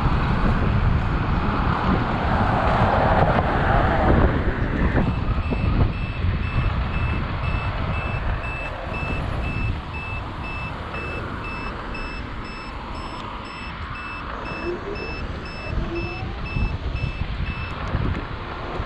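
Turn-signal beeper on an electric scooter sounding a steady, evenly repeating high-pitched beep that starts about five seconds in and stops near the end. Before the beeping, wind rush on the microphone is loud, then drops as the scooter slows.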